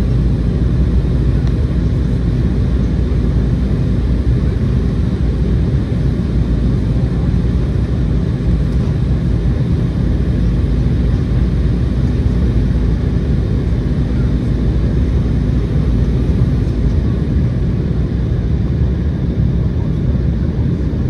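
Cabin noise inside an Embraer E190 on final approach: its wing-mounted GE CF34-10E turbofans and the airflow over the fuselage make a steady low drone with a faint hum.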